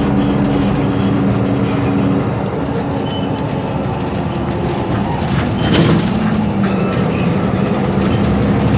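Mercedes-Benz Conecto G articulated city bus under way, its OM457LA straight-six diesel engine and driveline running with a steady drone whose pitch shifts a little partway through. A short, sharp burst of noise stands out about six seconds in.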